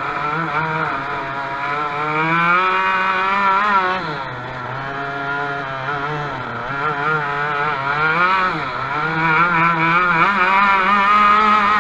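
Onboard sound of a racing dirt kart's engine running hard, its pitch falling as it eases off into a corner about four seconds in and again about eight and a half seconds in, then climbing back as it accelerates out.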